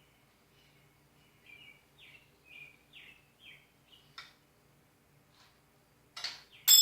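A small bird chirping a run of about six short, high, falling notes, roughly two a second. Near the end a sharp, loud metallic ring sounds out.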